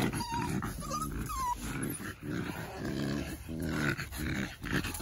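Young exotic bully puppies play-growling: a run of short, low growls one after another, with a few brief high whimpers in the first second and a half.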